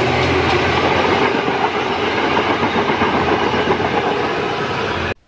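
Westlander passenger train's carriages rolling past at speed, loud steady running noise of wheels on rails. The sound cuts off suddenly near the end.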